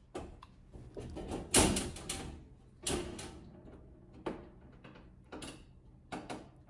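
Sheet-metal electrical panel door and cover being handled: a series of clacks and rattles, the loudest about one and a half seconds in, with smaller knocks after.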